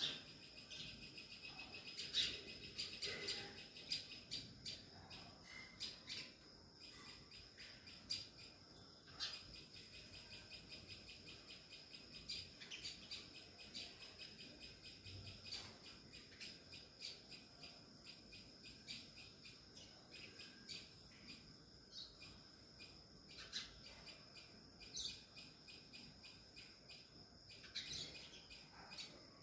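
Faint outdoor ambience: a steady high-pitched insect drone, cut through again and again by rapid trains of sharp ticks or chirps.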